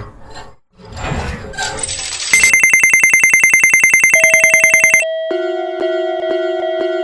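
Cartoon sound effects: a swishing rise, then a loud, fast electronic ringing trill lasting a few seconds, then a railroad crossing warning bell ringing in steady strokes about three a second.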